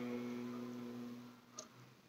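The last syllable of a chanted Vedic mantra held as one steady, low male hum and fading out over about a second and a half, then a single faint click.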